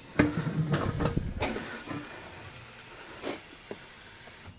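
A few sharp knocks and clicks as a clamp is fitted on the outside of a steel wheel rim, followed by a steady hiss.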